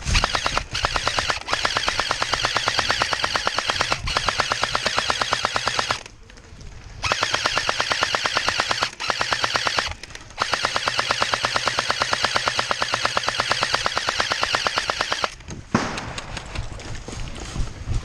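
An airsoft gun firing long full-auto bursts, a fast, even rattle of shots lasting several seconds at a time, laying down cover fire. The firing breaks off briefly about six seconds in and again near nine and ten seconds. Toward the end it gives way to scattered, quieter shots.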